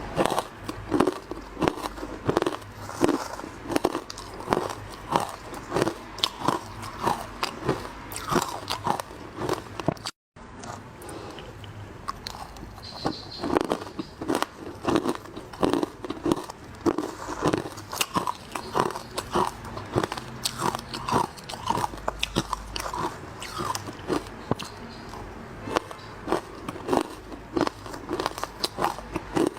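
Close-up biting and chewing of hard ice, a fast run of sharp crunches about two a second, broken once by a brief silent gap about a third of the way through.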